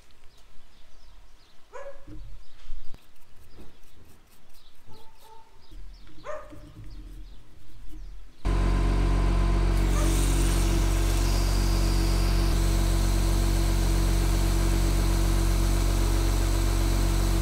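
A few short chirps over quiet, then about halfway through a sudden loud, steady sound: the Miller Nitro 5240 sprayer's engine running, with the hiss of water spraying from the boom nozzles as they are tested with plain water.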